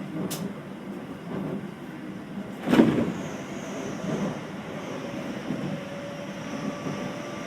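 Cabin running sound of a Keio new 5000 series train: a steady rumble of wheels on rail, with a sharp click under half a second in and a louder thump nearly three seconds in. After the thump, a faint high whine from the Hitachi SiC inverter and traction motors sets in.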